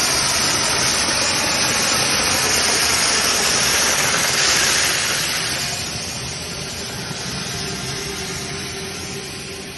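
Corrugated plastic hose extrusion line running: a steady mechanical hum with a loud hiss, growing quieter in the second half.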